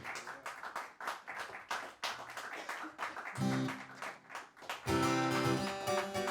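Audience clapping after a song. A guitar then starts the next song with a few picked notes about three seconds in, and breaks into strummed chords near the end.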